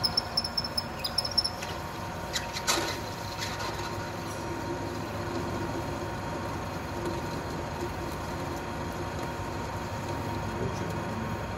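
Manual lathe running with its chuck spinning, a steady motor and gearbox hum with a constant tone, while it turns a steel angular pin. In the first second and a half there is a spell of crackling and a thin high whine from the cutting tool and chips, with a few clicks a little later, then steady running.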